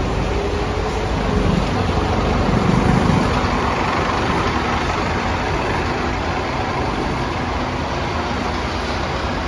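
Scania K230UB single-deck bus pulling away, its diesel engine running with the whine of its ZF automatic gearbox, which rises in pitch in about the first second and a half. It is loudest about three seconds in, then eases slightly as the bus moves off.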